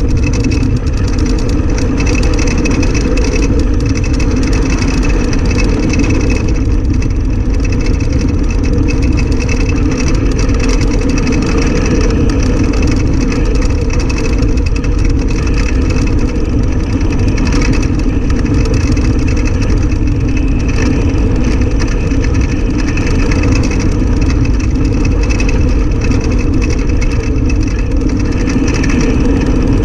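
Soapbox cart coasting downhill at speed: a loud, steady rumble of its wheels rolling on asphalt, with the vibration of the cart picked up by a camera mounted on it.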